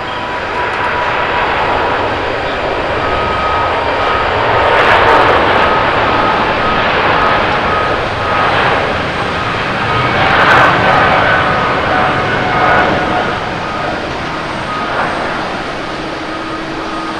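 The four GEnx jet engines of a Lufthansa Boeing 747-8 at takeoff thrust during the takeoff roll and lift-off: a loud rushing noise with steady whining tones. It swells about five seconds in and again about ten seconds in.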